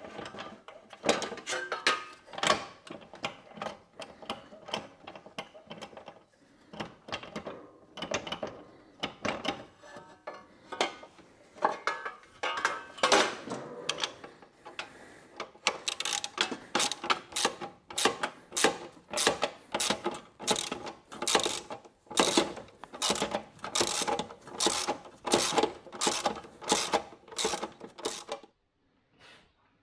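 Hand socket ratchet being worked on the steering column fittings. It starts with irregular metallic clanks and rattles as parts are handled, then about halfway through settles into steady strokes, about one and a half a second, that stop shortly before the end.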